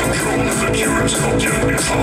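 Music with a steady beat, played loud through a Samsung DA-E750 tube-amplified wireless speaker.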